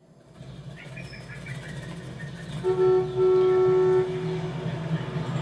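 A city-traffic rumble fades in from silence and runs steadily. About halfway through, a horn sounds twice, a short blast and then a longer held one.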